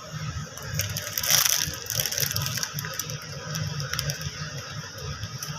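Kitchen knife cutting potatoes on a chopping board: irregular taps and clicks of the blade through the potato onto the board.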